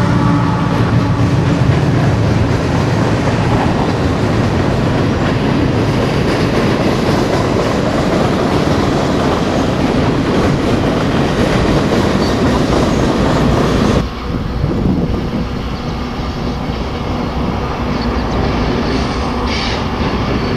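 Freight train passing close by: a diesel locomotive's engine for the first couple of seconds, then the steady rolling rumble and clatter of gondola cars on the rails. About fourteen seconds in it cuts to a quieter, more distant train crossing a steel bridge.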